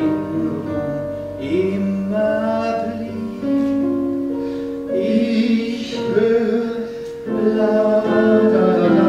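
A song from a stage musical: a singer holding long notes over instrumental accompaniment.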